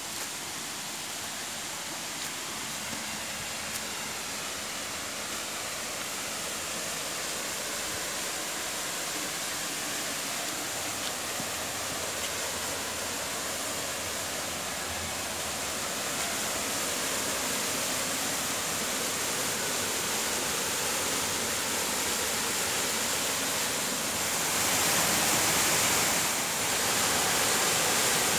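Water rushing over rocks in a small cascading forest stream, a steady rushing that grows gradually louder and is loudest near the end.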